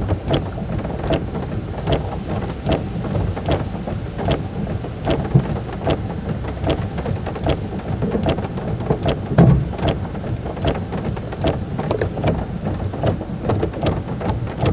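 Heavy rain pelting a car, with many sharp individual hits over a steady wash.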